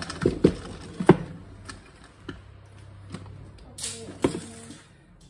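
Sharp plastic clicks and knocks from a spin-mop bucket and mop being handled: several in quick succession in the first second, then scattered, with a louder scrape and knock about four seconds in.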